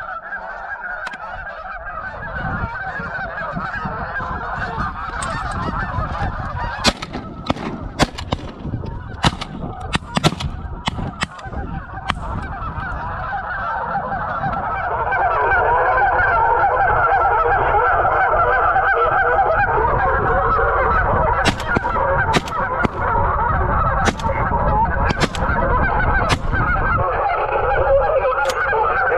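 A large flock of geese honking in a dense chorus of many overlapping calls, which grows louder about halfway through as the birds come overhead. Sharp clicks break in several times in the middle and again near the end.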